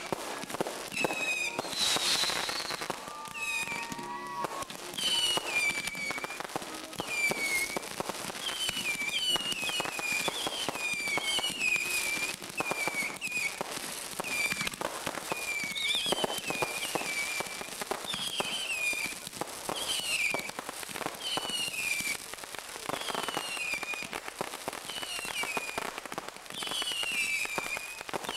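Fireworks going off without a break: rapid pops, bangs and crackle, overlaid by high whistles that each slide down in pitch, about one a second.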